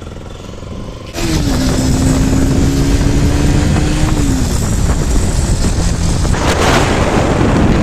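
Bajaj Pulsar RS 200 motorcycle's single-cylinder engine running through its repaired silencer, which now sounds normal. The sound gets much louder about a second in, and a rush of noise comes through near the end.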